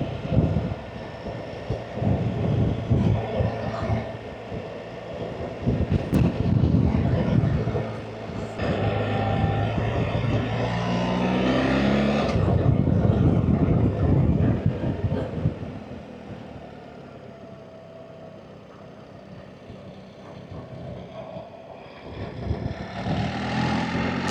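BMW R 1300 GS Adventure's boxer-twin engine under way with wind rush. The engine note rises in pitch about halfway through and cuts off sharply, runs quieter for several seconds, then picks up again near the end.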